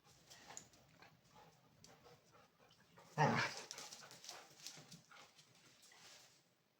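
Two dogs playing: scuffling and short scattered noises, with one loud, short burst of sound about three seconds in.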